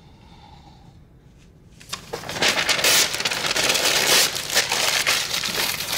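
Paper crinkling and rustling as it is unwrapped by hand, starting about two seconds in.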